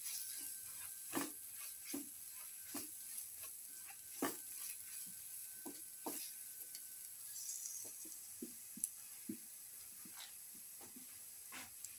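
Chopped shallots, onion, garlic and green chili sizzling softly in hot oil in a pan. A spatula scrapes and taps across the pan about once a second.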